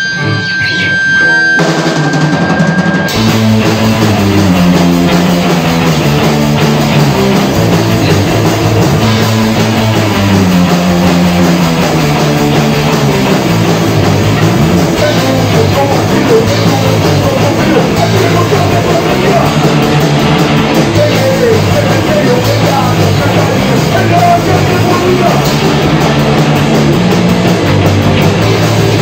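A rock band playing live in a rehearsal room: electric guitar, bass guitar and drum kit in an instrumental passage, no vocals yet, coming in loud within the first couple of seconds.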